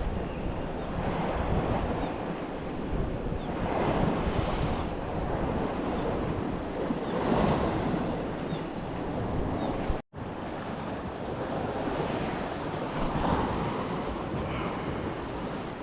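Sea waves washing in swells every few seconds, with wind buffeting the microphone. The sound cuts out for an instant about two-thirds of the way through.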